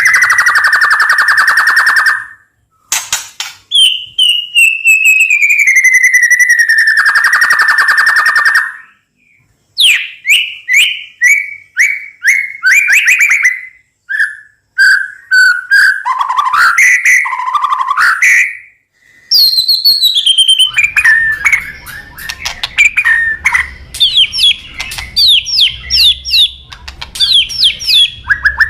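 White-rumped shama (murai batu) singing a loud, varied song: long buzzy rattles that slide down in pitch, then runs of sharp falling whistled notes and rapid changing phrases.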